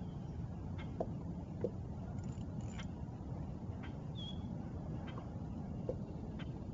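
Quiet lakeside ambience: a steady low rush, a couple of short high bird chirps, and a few light knocks and clicks.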